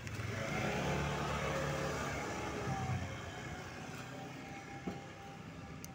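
A motor vehicle passing on the street: a low engine and tyre rumble that swells over the first few seconds and then fades away. A single sharp tap sounds near the end.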